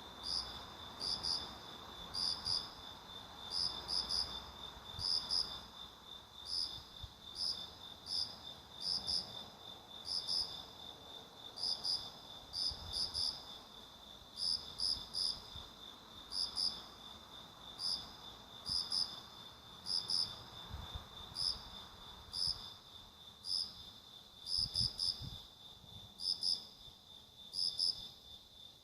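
Insects chirping: a steady high-pitched trill runs under short, higher chirps that repeat about once a second, often in pairs.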